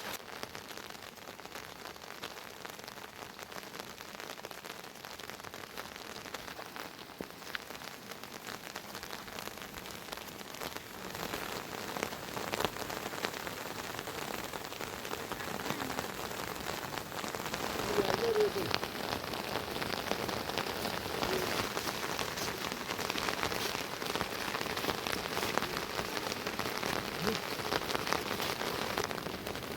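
Steady rain falling, growing heavier about a third of the way in and again a little past the middle.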